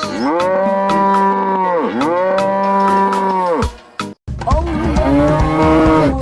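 Cow mooing: two long moos one after the other, then after a brief break a third.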